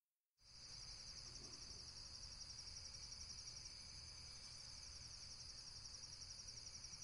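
Faint crickets chirping in a steady, rapid trill over a low hum, starting about half a second in: a night-time ambience effect.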